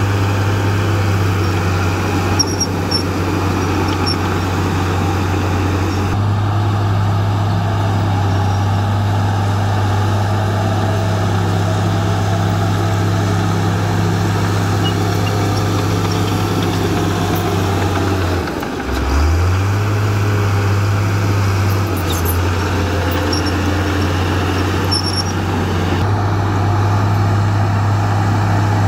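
Komatsu D53A crawler bulldozer's diesel engine running steadily while it pushes soil with its blade. About two-thirds of the way through, the engine note drops sharply and then climbs back up within a second.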